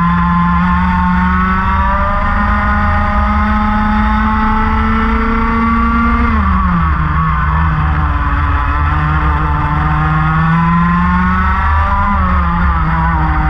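Racing kart engine heard on board. It rises steadily in pitch under acceleration, drops sharply about six seconds in as the revs fall, then climbs again and falls off once more near the end.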